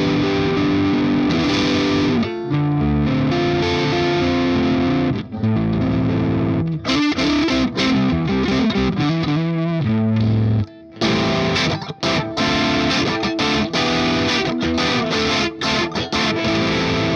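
Electric guitar played through the Boss IR-2 pedal's Soldano amp model, a distorted tone: ringing chords and riffs, a brief break about two-thirds of the way in, then choppier riffing with short, clipped strikes.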